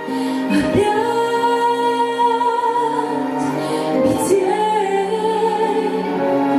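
A woman singing a slow song with instrumental accompaniment, holding long notes with vibrato.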